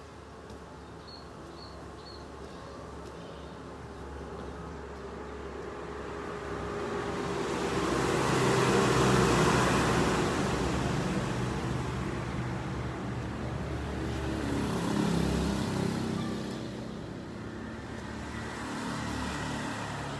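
A motor vehicle passing: engine hum and road noise build to a peak about nine seconds in and fade away, with a second, smaller swell around fifteen seconds.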